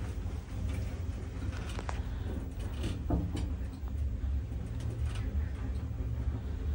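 Cab of a 2014 ЩЛЗ Ecomaks passenger lift travelling down, a steady low rumble of the ride with a few faint clicks and ticks.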